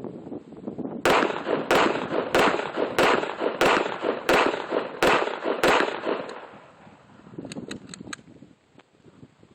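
A rapid, evenly paced series of eight sharp bangs, about one and a half a second, with a rumbling wash between them that dies away after the last one. A few faint cracks follow near the end.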